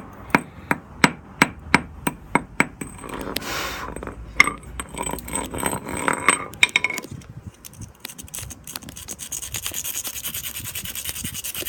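Sharp taps on the broken pieces of a glass marble, about three a second for the first three seconds. Then scraping and rubbing of the glass fragments with a few separate clicks, turning into a steady rasping rub near the end.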